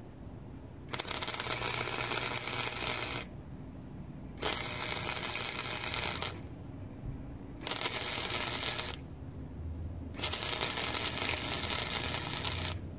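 Wire-feed welder arc crackling on steel angle iron in four bursts, each one to two and a half seconds long, with short pauses between them as the trigger is released and pulled again.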